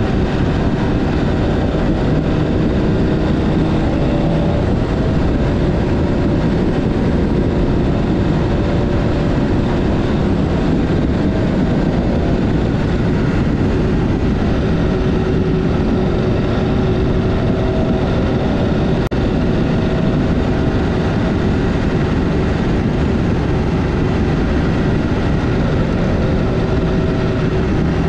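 Adventure motorcycle riding at a steady pace: engine running under a steady rush of wind noise.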